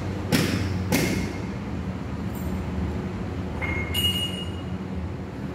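Hands working on a forklift's steer wheel and tie-rod end: two short knocks about half a second apart near the start, then two brief metallic squeaks or rings about three and a half and four seconds in, over a steady low hum.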